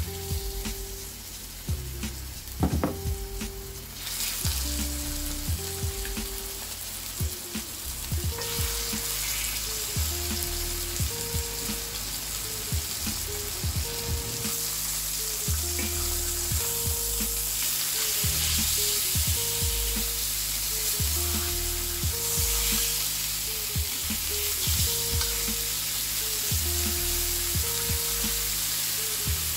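Pork chops sizzling as they sear in a hot cast-iron skillet. The sizzle starts about four seconds in, grows fuller about eight seconds in as more chops go into the pan, then holds steady.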